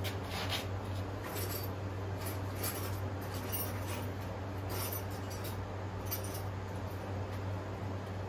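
Scattered faint clicks and light clinks of small hard objects being handled, over a steady low hum.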